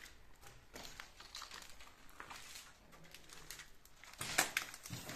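Scattered light clicks, crackles and rustles of people moving through a junk-strewn room: footsteps on debris and clothing rustle, with a louder cluster of crackles about four seconds in.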